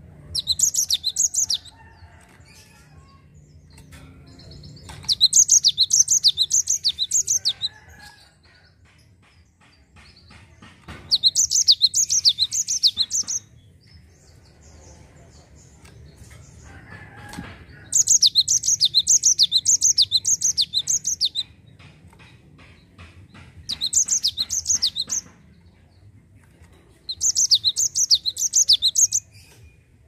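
Cinereous tit singing its rolling song: six bursts of a high, quickly repeated two-part note, each burst lasting about one and a half to three and a half seconds with short pauses between.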